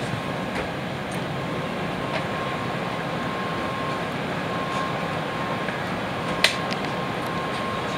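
Steady hum and hiss of the air conditioning and onboard equipment in a stationary N700 series Shinkansen car, with a faint steady tone and a few light clicks; one sharper click about six and a half seconds in.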